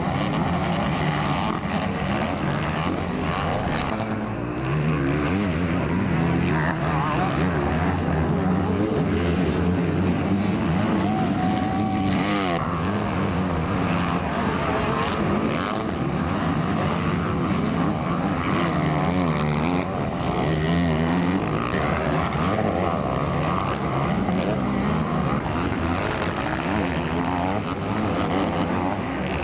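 Motocross dirt bikes racing, their engines revving up and down without a break.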